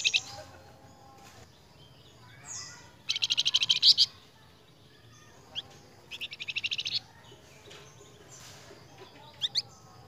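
Caged flamboyan songbird singing: bursts of rapid, high trilled notes, the loudest about three seconds in and another about six seconds in, with short rising whistles between and two quick ones near the end.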